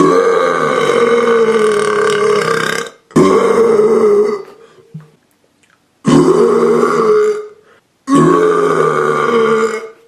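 A person burping deliberately: four long, loud, pitched belches in a row. The first lasts about three seconds and the later three are shorter, with brief pauses between them.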